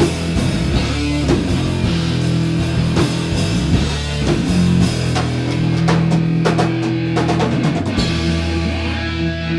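A live rock band playing loudly: electric guitars and bass hold heavy chords over a drum kit with frequent hard hits.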